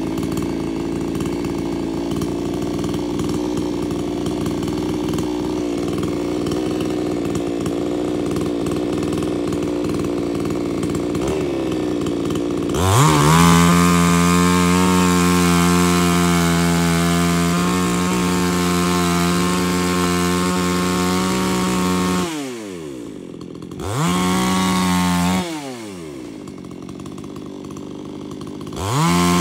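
An engine runs steadily for the first dozen seconds. Then a two-stroke chainsaw is revved to full throttle and held there, likely cutting into the tree to free a caught saw. Twice the throttle is released and the pitch falls away to idle, and it is revved up again near the end.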